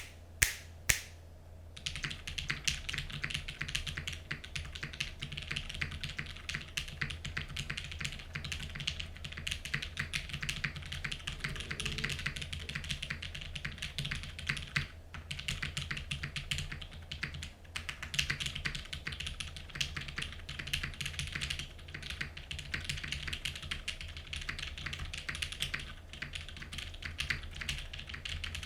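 Custom mechanical keyboard with lubed linear Cherry MX Black switches in an aluminium plate and GMK keycaps, being typed on fast and continuously. Three sharp key strikes come in the first second, then dense typing starts about two seconds in, with a couple of brief pauses midway.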